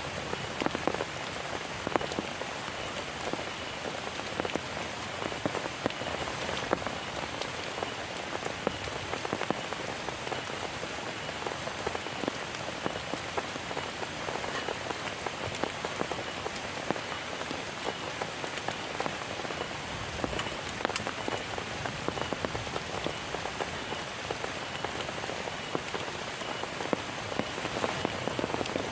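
Heavy rain falling steadily, with many separate drops pattering on a surface over a dense hiss of rain.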